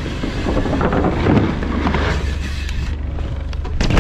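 Mountain bike rolling fast down a wooden plank ramp, tyres rumbling over the boards with wind rushing on the helmet microphone, then a loud thump near the end as the rider and bike land on the inflatable airbag.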